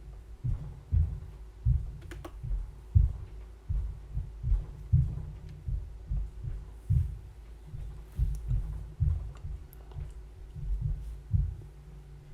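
Irregular dull low thumps, about one or two a second, with a couple of faint clicks.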